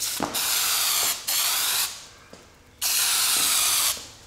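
Aerosol can of spray adhesive being sprayed in three hissing bursts, the first and last about a second long and a shorter one between, as glue is laid on the seat materials for upholstering.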